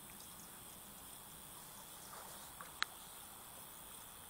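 Faint steady background hiss, with one sharp click about three seconds in.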